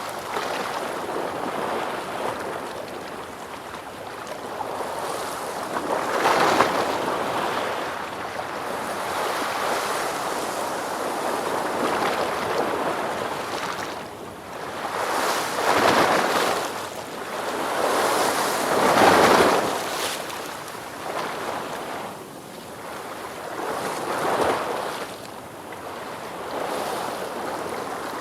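Ocean surf: waves rolling in and washing up in repeated swells of rushing water, each rising and falling over a few seconds, with the biggest surges about a third and two-thirds of the way through.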